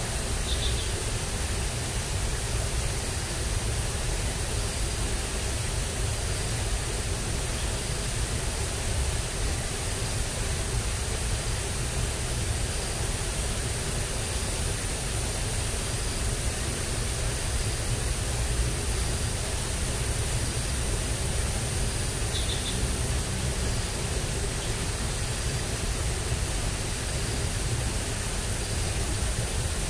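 Steady rushing of water flowing in a rain-swollen ditch, even and unbroken, with a faint steady high hiss above it. Two brief faint chirps come about a second in and again near the end.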